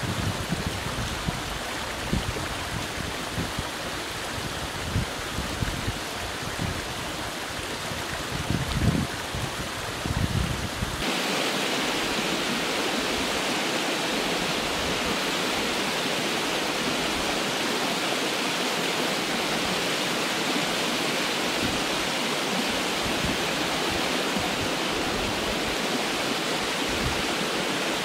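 Small mountain stream running over rocks, with irregular low rumbling bursts. About a third of the way through it changes suddenly to the steadier, brighter, slightly louder rush of a small waterfall pouring over rock ledges.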